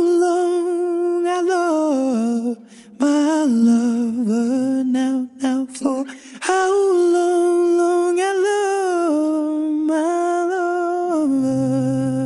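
Isolated male lead vocal from an a cappella track, singing long wordless held notes with a slow waver and short breaths between phrases. Near the end a steady low note joins under it.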